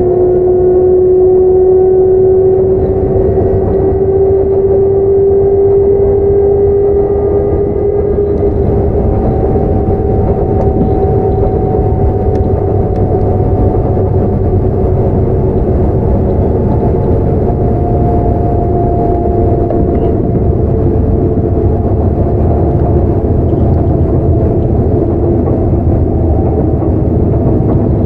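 Sotetsu 9000 series electric train running at speed, heard on board. The traction motors and right-angle cardan drive gears give a steady whine that rises slightly in pitch over the first several seconds and then eases, over a constant rumble of wheels on the rails.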